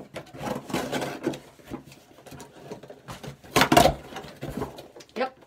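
Cardboard shipping box being handled and opened: irregular scraping, rustling and knocking of cardboard, with the loudest scrape a little past the middle.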